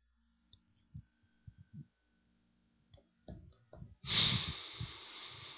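A few faint taps of handling noise, then about four seconds in a long breath into a handheld microphone, a soft hiss that fades away.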